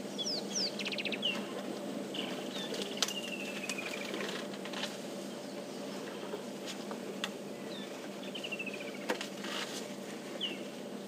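Kingfishers calling: a sharp note followed by a fast descending trill, heard several times over a steady outdoor background. A few sharp snaps come in between, typical of elephants breaking branches as they feed.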